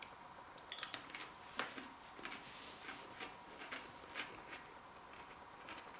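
Faint, scattered light clicks and taps, irregular and heaviest in the first half, over a faint steady hum.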